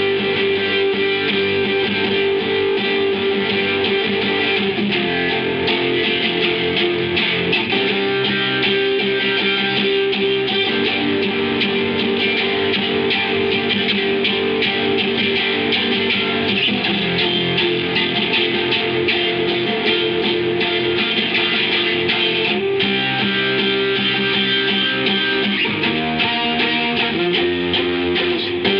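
Background music led by a strummed electric guitar with distortion.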